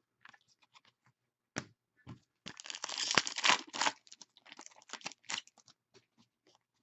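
Foil wrapper of a hockey trading-card pack being torn open and crinkled, with short rustling scrapes before and after a louder stretch of tearing about halfway through.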